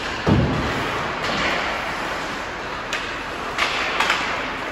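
Ice hockey game sounds in a rink: one heavy thud against the boards about a third of a second in, then a few sharp clacks of stick and puck, over a steady arena hum.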